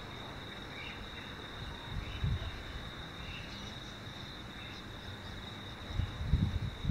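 Insects trilling steadily at one high pitch, with a few faint short chirps over it. Low buffeting on the microphone breaks in about two seconds in and again near the end, the loudest sounds.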